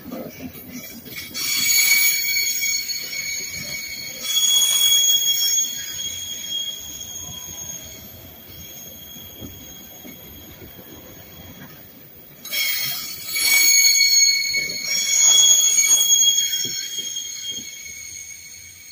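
Virginia Railway Express bilevel commuter cars rolling past on the rails, their wheels squealing in two long, high-pitched screeches, the first about a second and a half in and the second about twelve seconds in. The rumble of the train fades away near the end.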